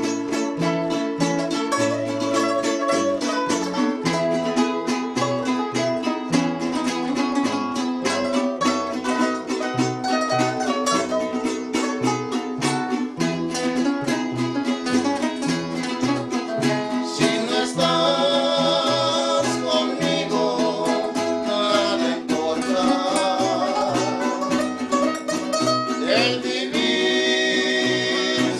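A string trio playing: deep plucked guitarrón bass notes under steadily strummed guitars. Voices come in singing a little past halfway through.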